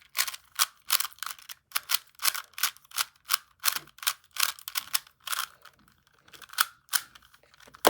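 Plastic 3x3 puzzle cube being turned in quick succession, its layers clicking sharply about three times a second with a short pause near the end.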